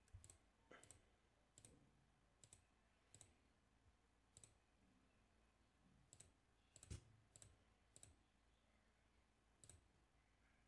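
Computer mouse button clicking: about a dozen faint, short clicks at irregular intervals.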